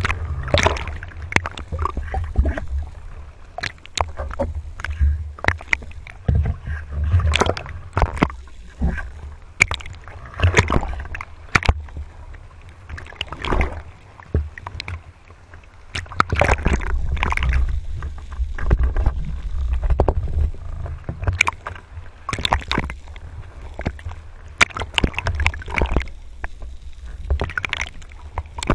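Sea water sloshing and splashing around a speargun-mounted action camera riding at the surface, in irregular splashes over a low rumble.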